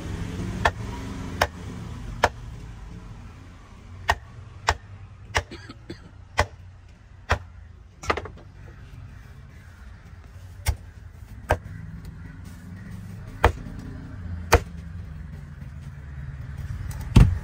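Heavy cleaver chopping fish on a wooden chopping block: sharp single knocks, most about a second apart, with a longer pause midway, over a steady low rumble.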